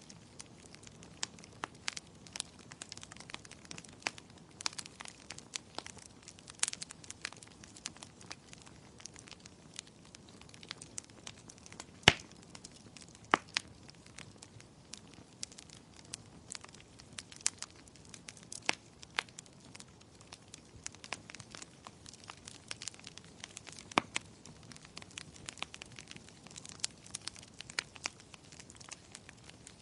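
Wood fire crackling, with irregular sharp pops of varying strength over a faint steady hiss; the biggest pop comes about twelve seconds in.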